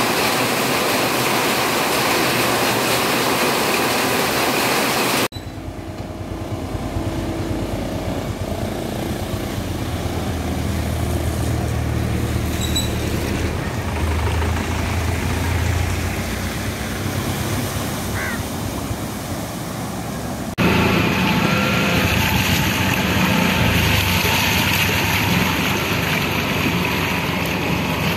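Heavy rain pouring down on trees and roofs, a dense steady hiss that cuts off about five seconds in. Then motorcycle and vehicle engines running along a flooded street, a low hum under a softer hiss of water. From about twenty seconds in, a louder steady rushing noise over the floodwater.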